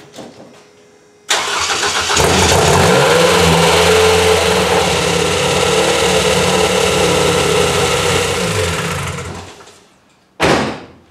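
Toyota 2AR-FXE 2.5-litre four-cylinder engine cranked by its starter about a second in, catching within a second and running for about seven seconds before it is shut off and winds down; a short loud burst follows near the end. The engine runs with a loud valve-train noise that the owner puts down to a possibly damaged junkyard intake cam phaser fitted on the exhaust side, which stays noisy until the ECU finds the cams and actuates the VVT-i.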